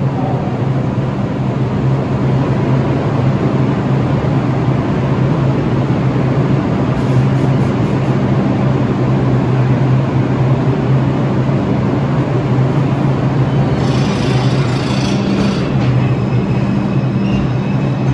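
R142-family New York City subway train running through the station: a loud, steady rumble of wheels on rail with a low motor hum. A brief high-pitched squeal comes about fourteen seconds in.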